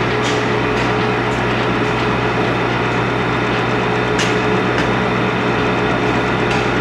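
Brake shoe projection seam welding machine running: a steady hum with a strong low drone and a few faint ticks.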